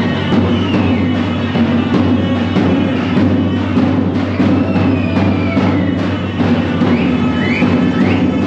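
Loud Turkish wedding dance music with a heavy, regular drum beat and a high melody line that slides up and down in pitch.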